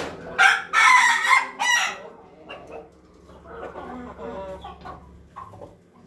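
Ayam ketawa (laughing chicken) rooster crowing loudly near the start, a broken call of about a second and a half, followed by softer clucks and short calls from the flock.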